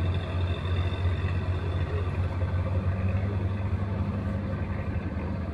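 Steady low engine rumble, an even drone with a second, higher hum joining about halfway through.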